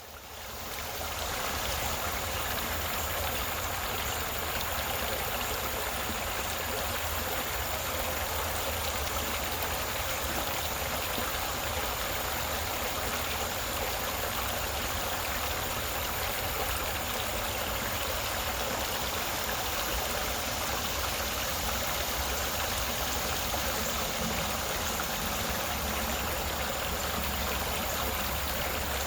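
Creek water running and babbling over stones, a steady rush with trickling detail, fading in over the first second. A low rumble sits underneath.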